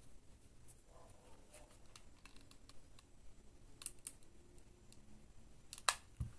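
Faint handling noises: fabric rustling and small plastic clicks as a mini hot glue gun is picked up, used and set down. Two sharper clicks come about four seconds in, and the loudest click, with a short low thud, comes near the end.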